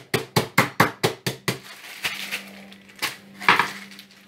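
Crisps being bashed inside a sealed plastic zip-lock bag on a kitchen worktop with a long utensil: quick crunching knocks at about five a second, which stop about a second and a half in. After that the bag rustles as it is handled, with one more knock about three and a half seconds in.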